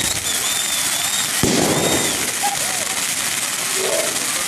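A firework bursting with a sharp bang about a second and a half in, followed by a rumbling tail, with a high wavering whistle before it.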